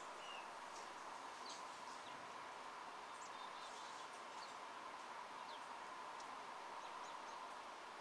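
Sparrows giving brief, high chirps, scattered irregularly throughout, over a faint steady hiss.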